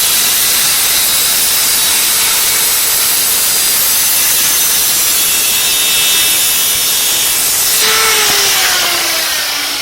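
Power saw cutting through wood with a loud, steady noise. The cut ends about eight seconds in and the motor winds down with a falling whine.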